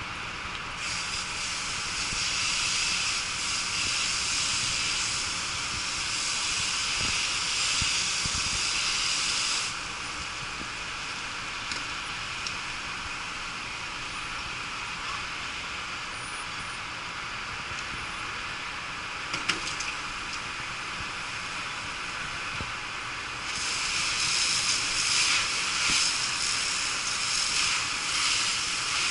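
Fire hose nozzle spraying water onto a burning bus, a loud hiss of spray and steam that runs for about nine seconds, stops, and opens up again near the end. A single sharp knock sounds in the quieter middle stretch.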